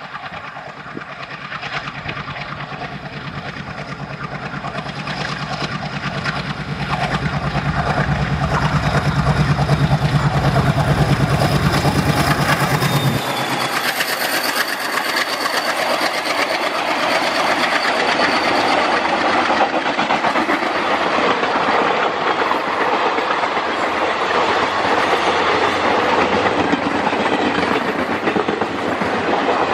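ALCo WDM3A diesel locomotive's 16-cylinder engine chugging hard at speed, a rapid rhythmic throb that grows louder as it approaches and drops away abruptly as it passes, about thirteen seconds in. Then the passenger coaches rush past at about 100 km/h with a steady clickety-clack of wheels over the rail joints.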